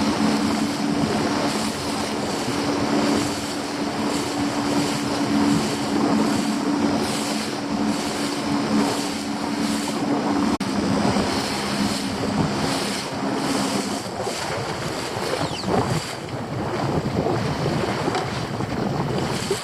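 Small boat outboard motor running with a steady hum, under wind buffeting on the microphone and the wash of the sea. The motor's hum stops about fourteen seconds in.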